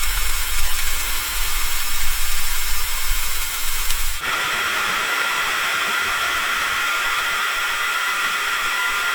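Rain hissing steadily against a window pane. About four seconds in, the sound changes abruptly: a low rumble underneath drops out, leaving an even, higher hiss.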